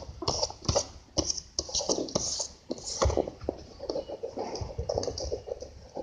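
Handling noises from paper craft work: scattered rustles with light taps and clicks, and an occasional soft thump.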